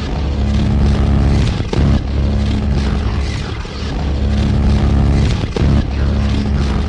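Loud hardcore techno music, carried by a distorted droning bass with brief breaks about every two seconds.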